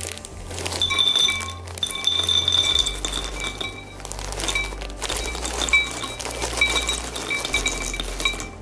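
Raw cashews poured into a glass bowl, a clinking rattle of nuts against glass, over background music.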